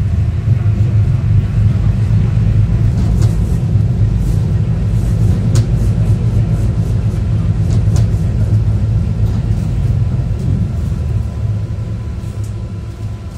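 Konstal 105NWr tram running, heard from inside the passenger car: a loud, steady low rumble from the wheels on the rails and the running gear, with a scattered series of sharp clicks. The rumble dies down over the last few seconds.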